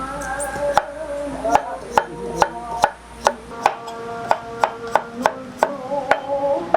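A kitchen knife chopping on a cutting board in steady strokes, about two to three a second, over a quiet held tune.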